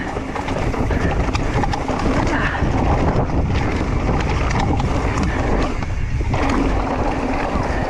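Santa Cruz Megatower mountain bike coasting down a dirt trail with its chain thrown: a steady rush of tyre noise over dirt and stones with a heavy low rumble, dense with small rattles and knocks from the bike, and wind on the microphone.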